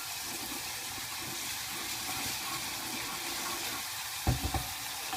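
Onion, garlic and paprika sizzling steadily in hot oil in a frying pan. A few short knocks from stirring against the pan come a little past four seconds in.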